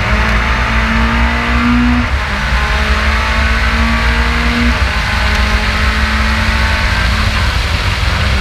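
Race car engine heard from a camera on the car's bodywork, accelerating hard down a straight, its pitch climbing and dropping back at upshifts about two seconds in, near the five-second mark and again about seven seconds in, with steady wind rush over the microphone.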